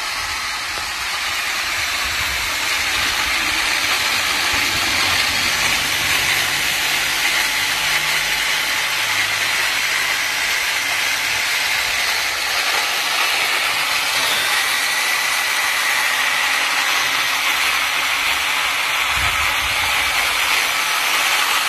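Radio-controlled model tractor's electric disc mowers spinning fast and cutting long grass: a steady, high, hissing whir.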